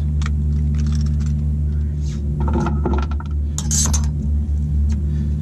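A steady low mechanical hum, with a few light metallic clinks about two and a half seconds in and a short bright rattle a second later, as a caught blue catfish hanging from a hand-held scale is handled and lowered onto the boat deck.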